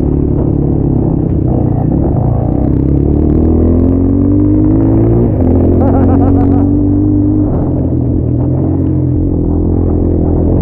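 Dirt bike engine under way, its pitch rising for a few seconds as it accelerates, then dropping suddenly about five seconds in and running steadier.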